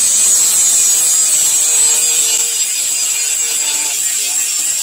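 Electric angle grinder with a thin abrasive cut-off disc cutting through chainsaw bar steel: a steady, loud, high-pitched grinding whine.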